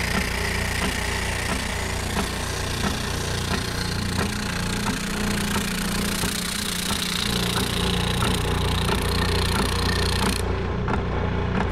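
Oscillating spindle sander running, its abrasive drum sanding a wooden board along a curve: a steady motor hum under the hiss of sandpaper on wood. Near the end the sanding hiss stops suddenly while the motor hum goes on.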